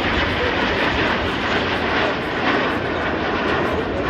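Jet noise from Aermacchi MB-339 trainers flying in formation: a steady, loud rush of turbojet engine sound.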